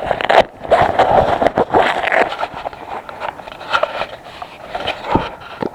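Close crackling and scraping of dry brush and gear being handled: an irregular run of short rustles and knocks.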